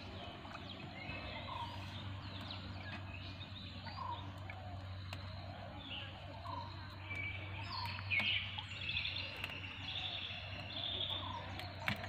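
Birds calling and chirping: short repeated notes and little trills, louder and busier from about seven seconds in, over a low steady hum, with a few faint clicks.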